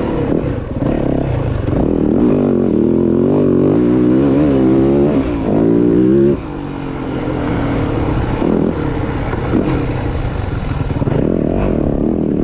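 Dirt bike engine revving, its note rising and falling as the throttle is worked. About six seconds in it drops back to a lower, quieter note and keeps running.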